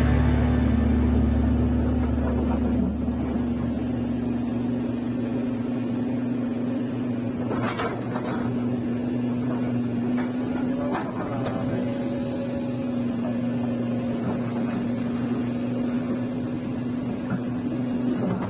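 Kobelco SK200 excavator's diesel engine running at a steady speed, a steady hum. A deep low rumble fades away over the first few seconds. Two brief knocks come about eight and eleven seconds in.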